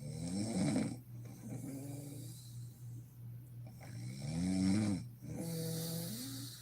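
A woman snoring in deep sleep: two loud snores about four seconds apart, each rising in pitch, each followed by a softer, steady-pitched breath.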